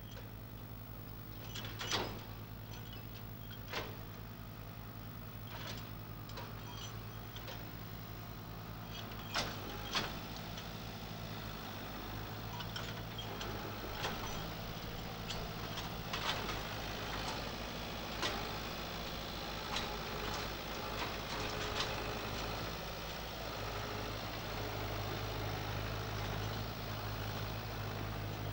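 Diesel farm tractor engine running steadily at low revs as it tows a trailer, with sharp knocks and clanks now and then, loudest about two seconds in and again around ten seconds.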